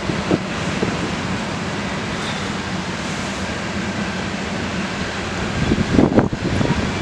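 Steady noise of a CN potash train's loaded covered hopper cars rolling past on the rails. Wind buffets the microphone in a few gusts about six seconds in.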